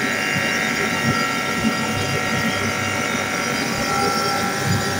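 A steady machine hum with a constant high whine that holds at one level throughout.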